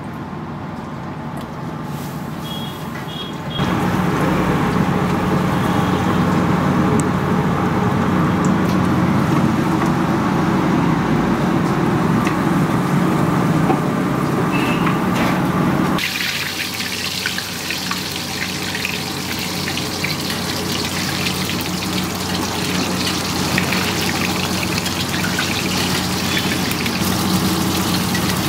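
Battered chicken pieces deep-frying in hot oil in a wok: a steady sizzle over a low hum. The sound steps up a few seconds in, and about halfway it turns brighter and more crackly.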